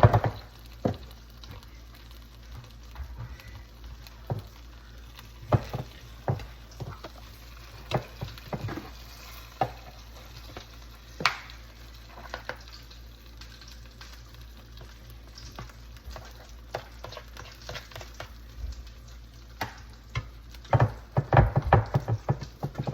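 Corn on the cob frying in melted butter in a pan: a steady sizzle broken by scattered sharp pops and spatters, which come thick and fast near the end.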